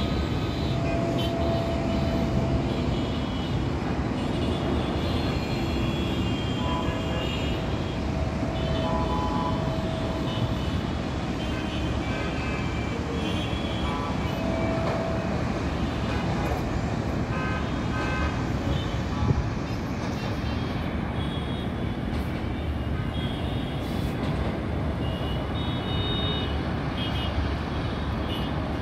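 Steady rumble of city road traffic, with several short horn toots scattered through it.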